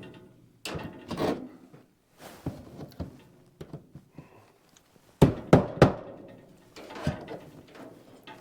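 A series of irregular knocks and thuds on wood, with a quick group of three loud strikes about five seconds in, heard in a small room.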